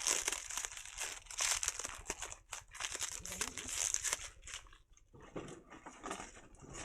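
Plastic packing material crinkling and rustling in irregular bursts as large apples are wrapped and packed, with a brief lull about five seconds in.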